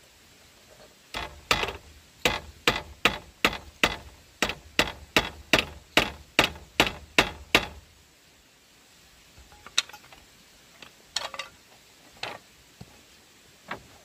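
Hammering on bamboo: a quick, even run of about sixteen blows, close to three a second, which stops about halfway through, followed by a few scattered knocks.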